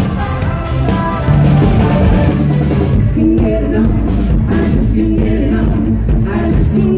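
A live pop-rock cover band playing with female lead vocals. About three seconds in, the music changes abruptly to another song.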